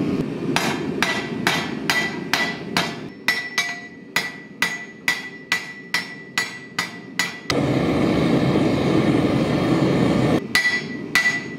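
Hand hammer striking red-hot mild steel on an anvil, about two to three blows a second, each with a ringing note from the anvil, as the blade is forged on its edge. About seven and a half seconds in the hammering stops and the steady rush of the gas forge takes over for about three seconds, then the hammer blows start again near the end.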